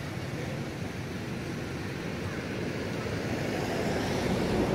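Steady rushing background noise with no distinct event, growing slightly louder near the end.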